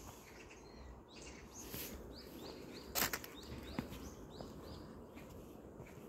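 A small bird chirps over and over in short, high notes, a couple of times a second, while footsteps crunch on a dry dirt trail with fallen leaves, one step loud about halfway through.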